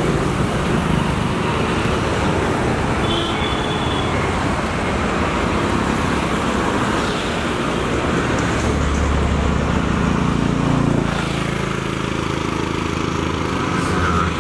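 Steady roadside traffic noise, with a vehicle's engine passing close by for a few seconds just past the middle.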